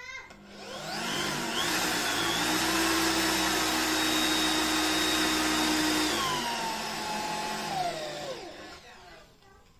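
Electric drill boring a hole into a rubberwood table rail. The motor speeds up in a rising whine about half a second in, runs steadily at full speed, then slows and winds down over the last few seconds.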